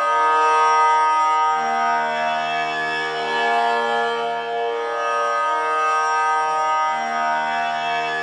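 Tanpura drone, its strings plucked in turn so that a new note starts every second or two and rings on into the next.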